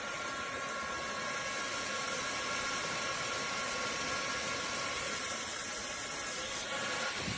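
Small battery handheld fan running steadily: an even rush of air with a thin, constant motor whine.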